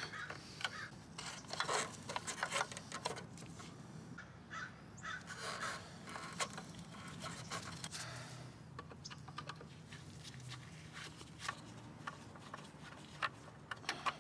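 Faint, scattered clicks, scrapes and rustles of gloved hands working the front turn-signal bulb socket out from behind a car's plastic bumper.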